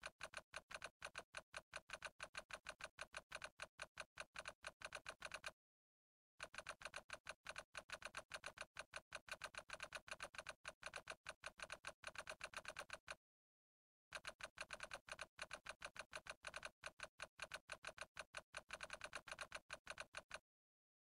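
Computer keyboard typing sound effect: fast, steady runs of key clicks in three stretches, broken by pauses of about a second, ending shortly before the end.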